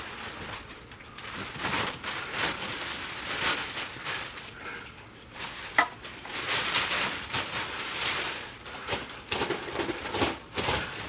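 Rustling and crinkling of a plastic sack and wrapped presents being set down under a Christmas tree, coming in uneven surges, with one sharp click about halfway through.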